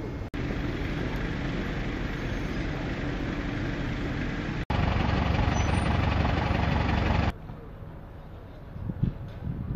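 Idling vehicle engines and street noise, cut off abruptly twice: first a steady hum, then a louder low rumble for a few seconds, then much quieter street sound with a few soft knocks near the end.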